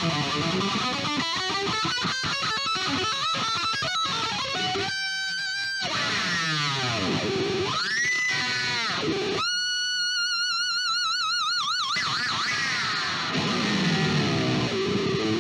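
Distorted electric guitar played solo on an ESP V-shaped guitar with a locking tremolo. It opens with fast picked runs. Through the middle come held notes with wide vibrato and deep pitch dips that swoop back up, worked with the whammy bar. It ends on more fast rising and falling runs.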